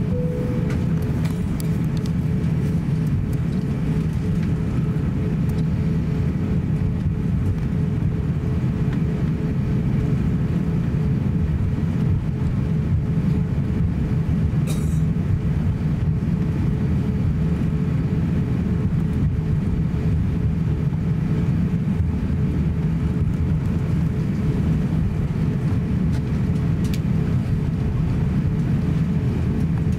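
Cabin noise of an Airbus A350-900 taxiing: a steady low rumble from its Rolls-Royce Trent XWB engines at taxi power and the rolling airframe, with a faint steady hum. One short click about halfway through.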